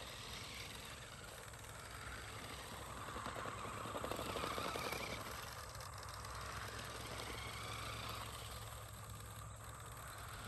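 Toy RC monster truck running, a small mechanical drive sound that swells about halfway through and then eases off.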